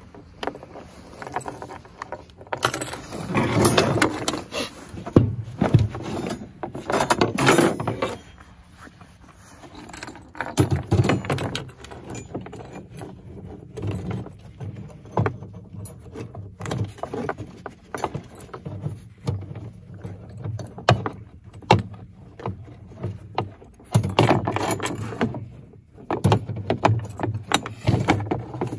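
Steel trap chain, wire and a metal stake clinking and jangling against a metal pickup tailgate as wire is twisted to fasten a body-grip trap to the stake. The clinks come in irregular clusters, with louder bursts of handling.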